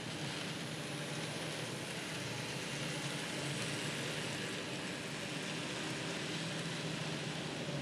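N scale model freight train, led by a Santa Fe SD45-2 locomotive, running past with a steady whirr of its motor and wheels on the track.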